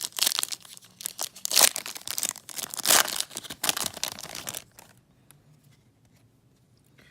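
Trading-card pack wrapper being torn open and crinkled by hand, a dense run of rustles that stops about five seconds in.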